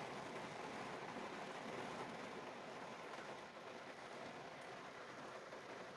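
Heavy rain pouring, heard as a faint, steady hiss.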